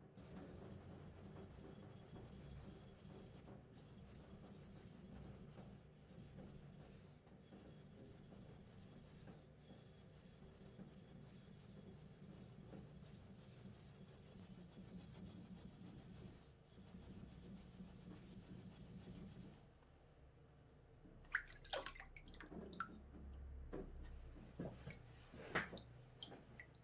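Yanagiba (sashimi knife) blade being rubbed back and forth on a wet whetstone, a quiet steady scraping with a few brief breaks. Near the end it stops, and a few sharp clicks and knocks follow.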